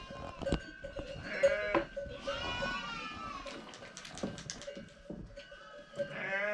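Sheep and goats bleating, several wavering calls one after another, with a few sharp clicks around the middle.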